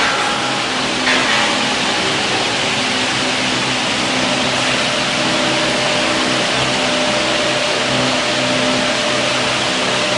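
Machinery running steadily: a constant hum with an even hiss over it, and a short louder rush about a second in.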